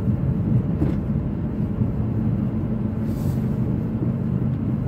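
Steady low noise of a car's engine and tyres on the road, heard from inside the cabin while driving.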